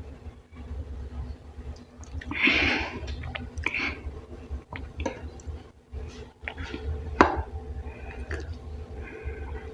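Close-up eating sounds as a meal of wheat dhido and chicken curry begins: soft squishing of the food, chewing and a few sharp clicks, the loudest about seven seconds in, over a steady low hum.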